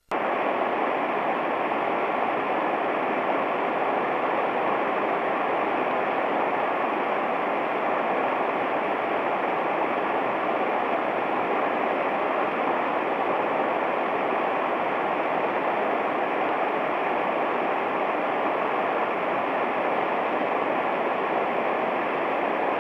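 Mountain stream rushing steadily, its flow running high and fast after a typhoon flood.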